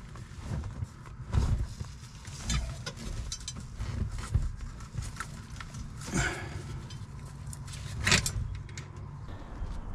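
Clinks and scrapes of hands working the shift lever and its rubber boot out of the transmission hole in a truck's cab floor, with sharper knocks about six and eight seconds in, over a low steady rumble.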